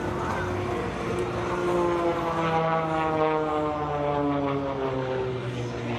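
Propeller airplane flying past, its engine note sliding steadily lower in pitch as it passes.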